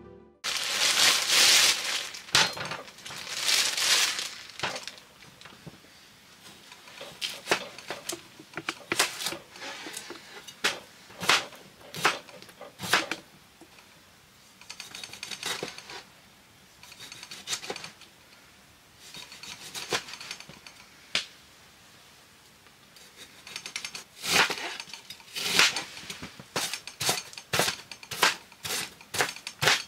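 Cookware and utensils being handled: irregular clinks and knocks, with two longer scraping or rustling sounds in the first few seconds.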